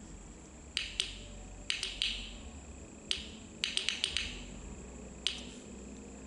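About a dozen sharp clicks as the microswitch key of a homemade Morse code oscillator is pressed, singly and in quick runs, with no tone from the loudspeaker: with both potentiometers turned to zero the oscillator does not sound.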